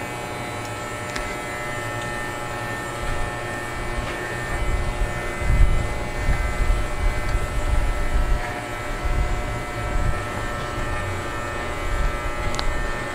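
Electric pet grooming clippers running with a steady buzz. Uneven low bumps and rumbling come in from about four seconds in to about eleven seconds.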